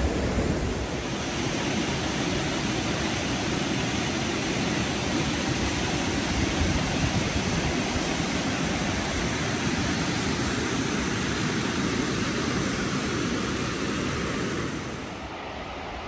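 Snowmelt-fed waterfall and the rocky stream below it rushing, a steady hiss of falling water. About a second before the end it drops to a quieter, duller rush.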